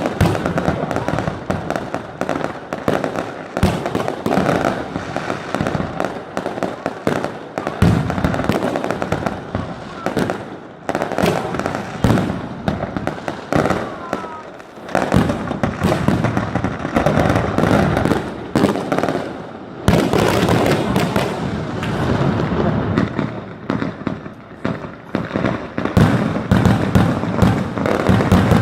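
Fireworks going off in rapid succession, a dense crackle of bangs that thins out briefly a few times and builds louder again near the end.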